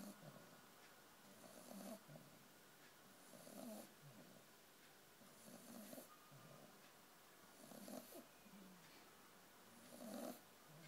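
A sleeping puppy snoring faintly, one snore with each breath about every two seconds.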